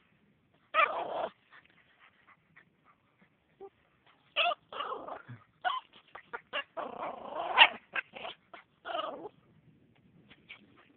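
A chained puppy whimpering and vocalising in short, irregular bursts as it strains against its chain toward food it cannot reach. There is one burst about a second in, then a run of them from about four to nine seconds in.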